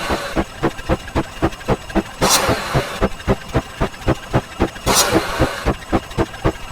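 Edited-in sound effects for a counting sequence: a fast run of short clicks, about five a second, with a hissing swish twice, about two and a half seconds apart.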